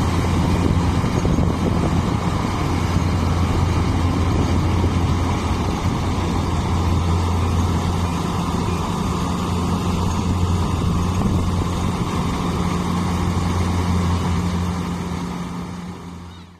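Engine running steadily at an even speed with a low hum, fading out at the very end.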